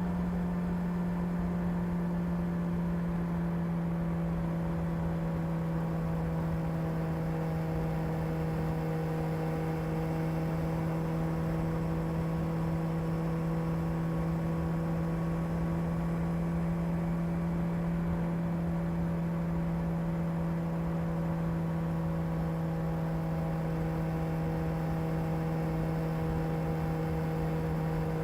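Kawasaki ZR-7S air-cooled inline-four engine running steadily at a constant speed through its stock exhaust, one even tone that settles slightly lower in pitch over the first few seconds.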